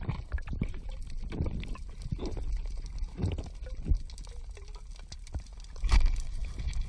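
Water gurgling and sloshing heard underwater, with a low rumble and irregular short surges, the loudest about six seconds in.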